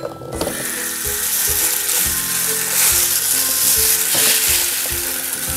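Steady, loud hiss, with light background music playing a simple stepping melody and a soft beat underneath.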